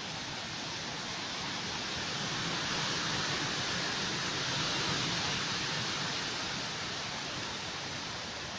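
Wind rushing through foliage, building to a gust about midway and easing off again.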